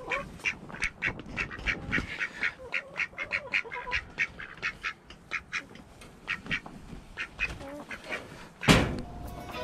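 Barnyard poultry calling in short notes repeated about three a second, with a single loud bump near the end and music coming in at the very end.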